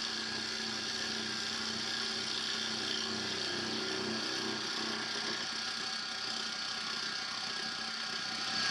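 Milling machine spindle running at about 1250 RPM while an insert cutter takes a light, oiled finishing cut across a steel block. A steady machine hum with several steady whining tones.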